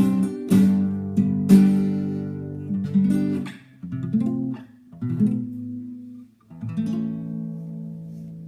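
Acoustic guitar strumming chords in a mariachi style, in short bursts with brief gaps. The last chord is left to ring out and fade.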